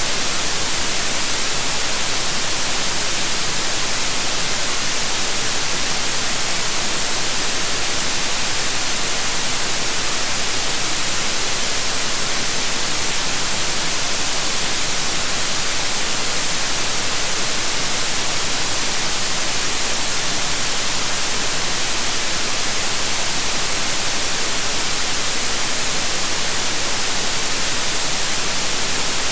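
Steady electronically generated white noise: an even, unchanging hiss with most of its energy in the upper frequencies.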